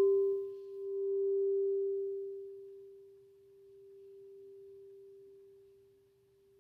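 Frosted quartz crystal singing bowl ringing out after a single strike: one clear, steady tone that slowly fades away, swelling and ebbing in loudness as it dies.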